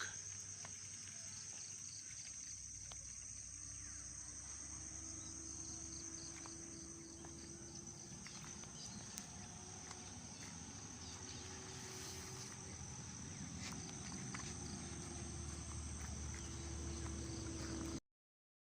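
Steady, high-pitched insect chorus over a low rumble, cutting off abruptly near the end.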